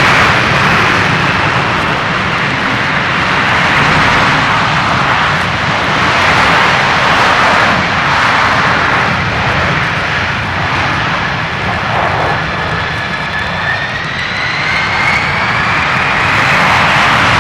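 Aircraft engine noise, a loud steady roar with a whine that rises in pitch in the last few seconds, played from a vinyl LP.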